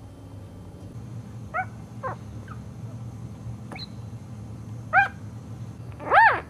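Newborn puppy whimpering: about half a dozen short squeaky cries, each rising and falling in pitch, the loudest near the end, over a steady low hum.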